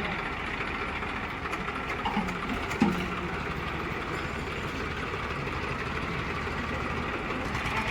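A heavy vehicle's diesel engine running steadily at idle, with an even, rapid pulse. A short sharp sound stands out a little under three seconds in.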